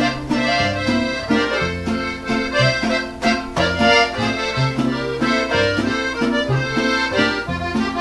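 Instrumental break of a norteño corrido between sung verses: an accordion plays the melody over a bass line that steps from note to note on a steady beat.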